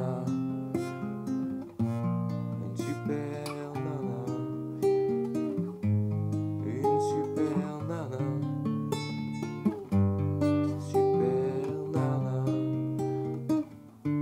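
Nylon-string classical guitar played solo by hand, plucked chords over held bass notes.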